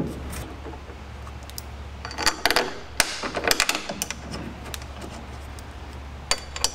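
Light clicks and knocks of a machined metal oil catch can and its mounting bracket being handled and seated among engine-bay parts, in a few short clusters over a steady low hum.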